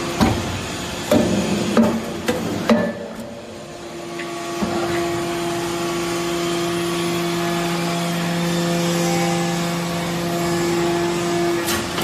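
Hydraulic swarf briquetting press at work: a few sharp metal clanks in the first three seconds, then a steady hum at constant pitch for about seven seconds as the ram compacts the metal chips, and another clank near the end.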